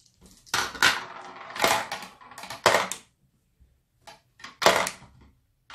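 Potion Explosion's ingredient marbles clicking and clattering as they are handled and put back into the game's marble dispenser, in about five short bursts.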